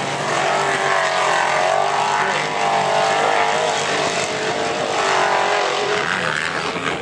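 Engines of off-road race trucks revving hard over a dirt track with jumps, the pitch rising and falling as the throttle comes on and off. More than one engine is heard at once.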